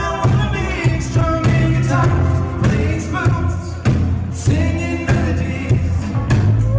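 A live rock band playing on stage, with a man singing lead over a steady beat.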